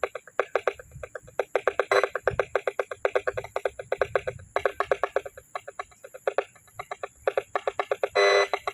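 An alarm beeping rapidly, about ten pulses a second, in runs broken by short gaps, with a brief unbroken burst near the end.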